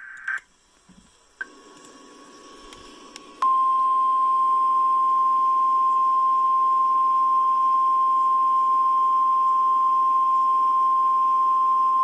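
NOAA Weather Radio emergency alert: a short data screech ends just after the start, then the 1050 Hz warning alarm tone sounds faintly from about a second and a half in and jumps to a loud, steady single tone about three and a half seconds in. This tone marks a National Weather Service warning broadcast.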